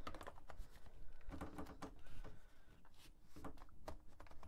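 Faint handling noise of the RevAir dryer's plastic wand being pushed onto its hose, with a few soft clicks and rubbing.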